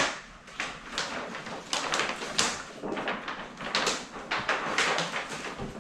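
Backing liner being pulled off a sheet of vinyl car wrap film, a run of short ripping, crackling peels.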